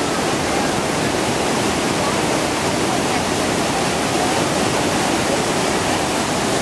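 Niagara River rapids rushing: steady, loud whitewater noise with no let-up.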